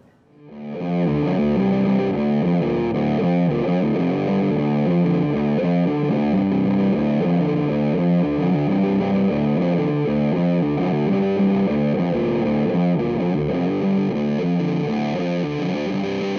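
1978 Gibson EDS-1275 double-neck electric guitar played through a Vick Audio Violet Ram's Head fuzz pedal (a recreation of the '73 Big Muff Ram's Head) into an Orange AD30 amp: a heavily fuzzed riff of quickly changing notes. It comes in about half a second in.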